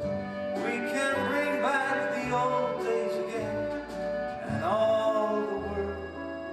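Song from a stage musical: a voice sings over sustained instrumental accompaniment, starting about half a second in.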